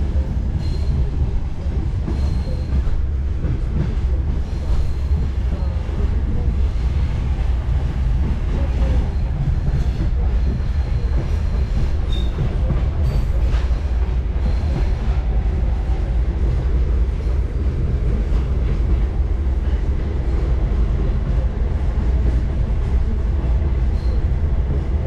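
Passenger railcar rolling on the rails, heard from inside the car: a steady low rumble with scattered wheel clacks and a faint high wheel squeal that comes and goes.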